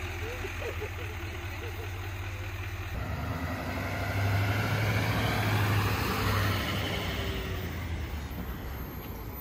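GMC Sierra HD pickup truck engine running steadily, then pulling away towing a travel trailer. The engine and road noise swell for a few seconds in the middle and then fade.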